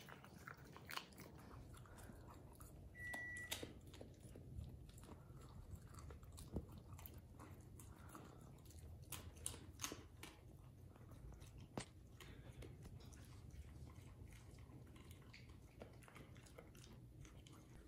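Whippet eating from a ceramic bowl: faint chewing and biting, with scattered small clicks.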